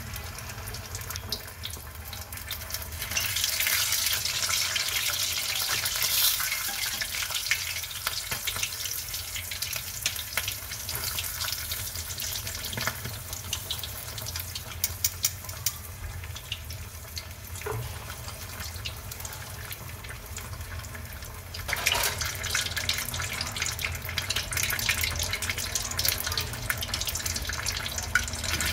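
Pork hock deep-frying in hot oil, its skin fried crisp: a steady sizzle with dense crackling. It swells louder a few seconds in and again about three-quarters of the way through.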